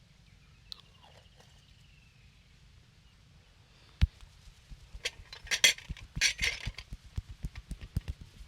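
Hands striking the body in a massage: a sharp smack about four seconds in, then a quick irregular run of slaps and taps, several a second, with a couple of brief rubbing sounds between. Before it, near quiet with a faint short chirp.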